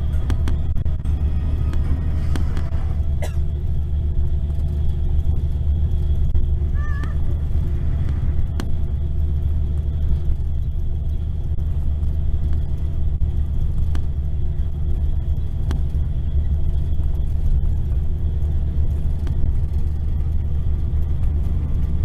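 Mercedes-Benz coach engine and road noise heard inside the passenger cabin at cruising speed: a steady low rumble with faint steady tones above it.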